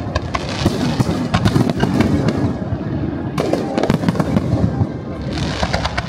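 Aerial firework shells bursting in rapid succession: a dense run of sharp bangs and crackling over a low rumble. The strikes thin out briefly about halfway through, then pick up again.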